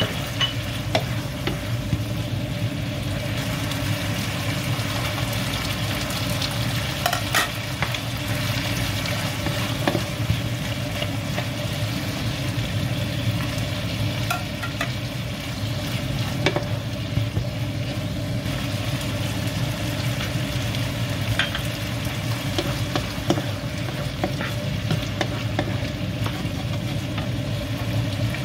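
Octopus pieces sizzling in a nonstick frying pan as they are stir-fried, with scattered short clicks and scrapes of a wooden spatula against the pan, over a steady low hum.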